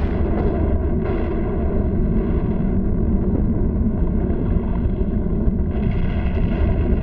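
Erupting volcano rumbling steadily, a deep continuous sound effect on an old animated film soundtrack.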